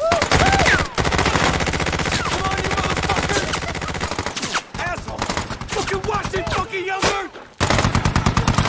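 Rapid, sustained automatic fire from an M240 belt-fed machine gun mixed with rifle fire, breaking off briefly about four and a half and seven seconds in.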